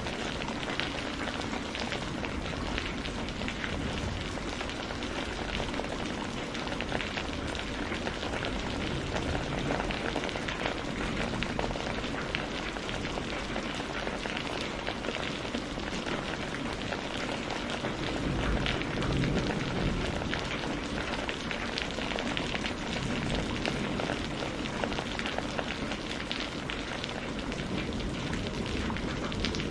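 Steady rain falling, a dense even hiss full of the patter of individual drops.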